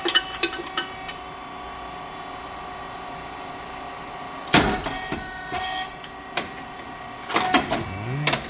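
SYP9002 rice cake popping machine running: a steady hydraulic motor-and-pump hum with several fixed tones, broken by clicks and knocks. A single loud, short burst comes about four and a half seconds in, the kind of burst the heated moulds make as they open and puff a cake.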